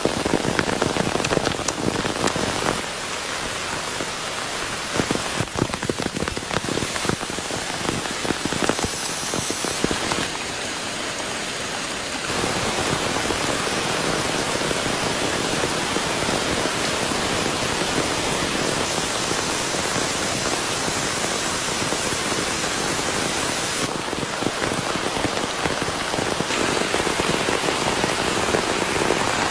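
Heavy rain falling, with close drops ticking and spattering in the first dozen seconds, then an even, steady hiss of rain. The sound changes abruptly several times, as if between different spots in the downpour.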